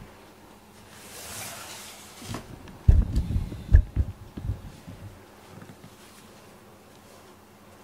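A cat rubbing its body along the camera: fur brushing across the microphone gives a soft rustle about a second in, then a cluster of low bumps and rumbles around three to four seconds in as it pushes against the camera.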